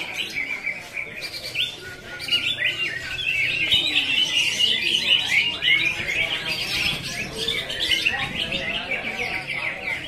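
Several caged greater green leafbirds (cucak ijo) singing at once: a dense, unbroken stream of fast overlapping chirps, trills and whistled phrases.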